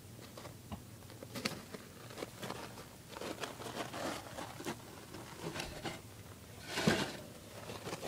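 Scattered rustling and light clicking of a guinea pig moving about and picking at hay on pellet bedding, with a louder scuffle about seven seconds in.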